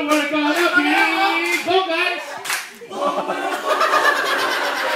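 A group of voices chanting a cheer in unison, with hand claps about once a second; a little under three seconds in the chant breaks off into a looser mix of shouting voices.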